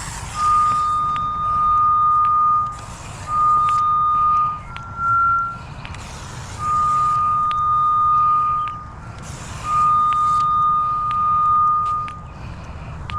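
Cable locator receiver sounding its locate tone while tracing a clamped coax TV cable: a steady high beep held for one to two seconds at a time, breaking off at irregular gaps and once briefly jumping higher. Short bursts of hiss fill the gaps.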